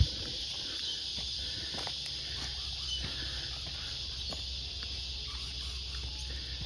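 Footsteps crunching irregularly on dry leaf litter, over a steady high insect chorus from the bush.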